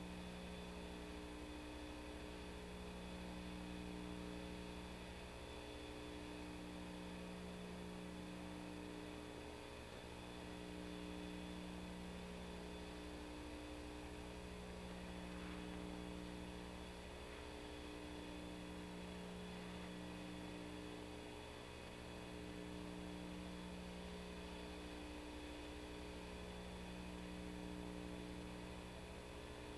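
Low steady electrical hum over faint hiss, its tones wavering at a slow, regular beat every two seconds or so.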